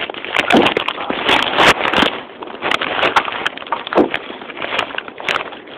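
Handling noise of a phone being moved around: irregular rustling and scraping against the microphone, with many sharp clicks and knocks.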